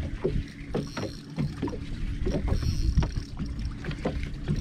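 Wind rumbling on the microphone aboard a small fishing boat, with small knocks and a faint steady hum underneath.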